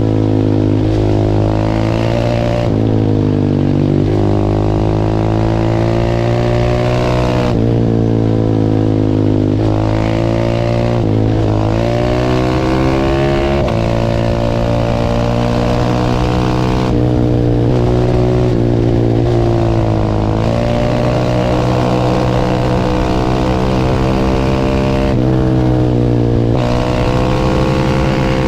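Single-cylinder supermoto motorcycle engine under hard acceleration, being ridden through the gears. The revs climb, drop at each shift, and climb again, over and over.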